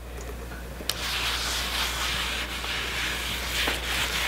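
A hand rubbing beeswax-and-oil conditioner into the surface of a wooden cutting board, a steady scratchy rubbing that starts about a second in after a light knock.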